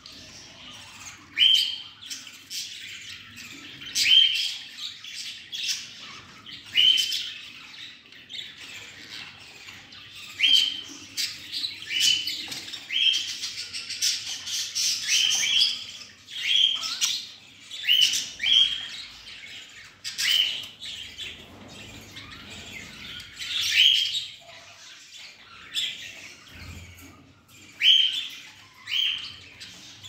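Budgerigars chirping: short rising chirps every second or two, with scratchy chatter in between.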